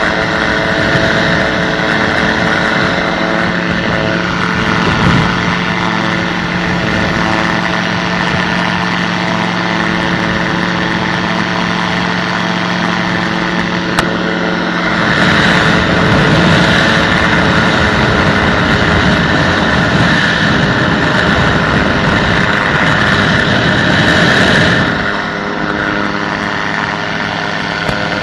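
Flex-wing microlight trike's engine and propeller running steadily in cruise, with air rushing past the microphone. The rush of air grows louder about halfway through for some ten seconds, then drops back near the end; a single click sounds about halfway.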